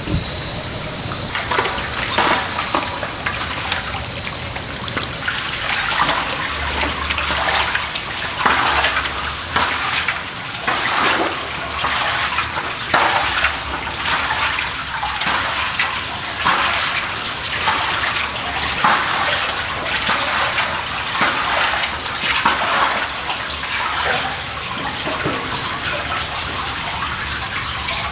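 Footsteps of a person and a dog splashing through shallow water on the floor of a concrete drain pipe, about one splash a second, over a steady wash of running water.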